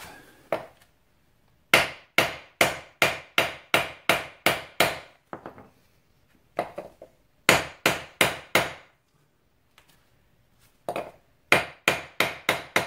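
Hammer tapping a new wheel bearing into its housing: three runs of sharp metal strikes with a short ring, about three a second, with pauses between the runs.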